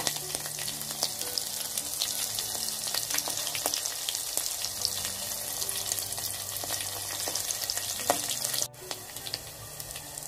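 Garlic cloves, green chillies, cumin and mustard seeds frying in hot oil in an aluminium pot: a steady sizzle with dense crackling and spitting. It turns abruptly quieter near the end.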